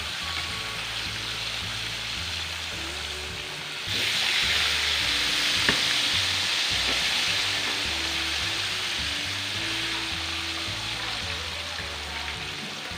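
Whole flour-dusted tilapia frying in hot oil in a wok, a steady sizzle that grows louder about four seconds in as the second fish goes into the oil. A metal spatula clicks once against the wok.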